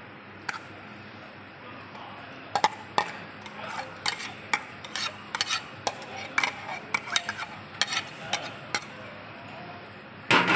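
A spatula and plate clinking and scraping against a large metal wok as chopped herbs are scraped in, a string of short sharp clicks over a steady background hiss. Near the end, louder clattering as stirring in the wok begins.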